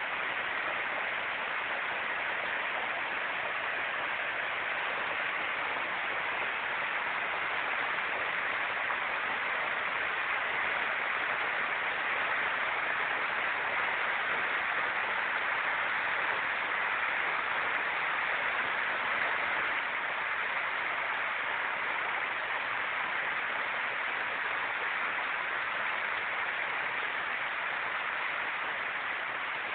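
Muddy storm runoff pouring out of a concrete culvert outfall in a turbulent torrent: a steady rushing of churning water.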